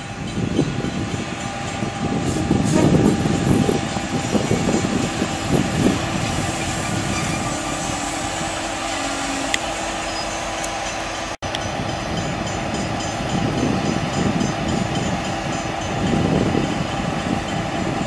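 V/Line N-class diesel-electric locomotive hauling a passenger train slowly along the platform: the engine rumble swells loudest a few seconds in, with a thin high squeal over the first half, then settles to a steady drone. The sound cuts out for an instant about eleven seconds in.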